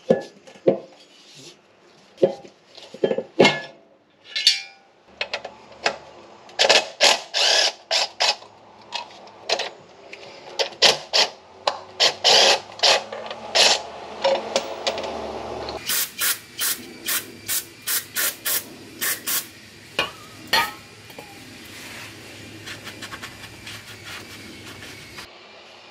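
Cordless power tool run in repeated short bursts on the bolts of a Nissan 350Z's transmission brace, among clicks and clatter of metal parts being handled. For a few seconds near the middle the pulses come evenly, about two a second.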